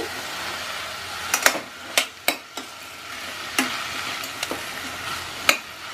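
Mixed vegetables sizzling in oil in a steel pressure cooker as chopped bell peppers are tipped in and a spatula stirs them. A steady sizzle, with scattered sharp knocks against the pot.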